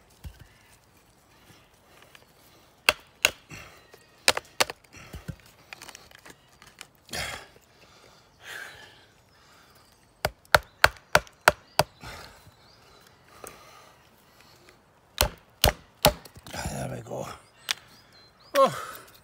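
Wooden mallet striking the spine of a 1075 carbon-steel bushcraft knife, driving it through a small log on a chopping block to split it. Sharp knocks in groups, with a quick run of about six blows in the middle.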